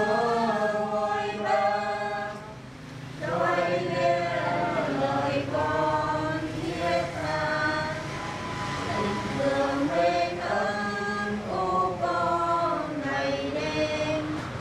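A group of people singing together unaccompanied in a slow, chant-like hymn, with long held notes and a short pause about three seconds in.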